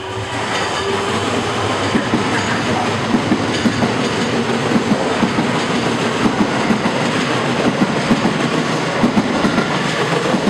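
Silver JR West electric commuter train rolling past, its steel wheels clacking over rail joints in an uneven run of sharp beats over a steady rolling rumble. The sound builds over the first couple of seconds and then holds.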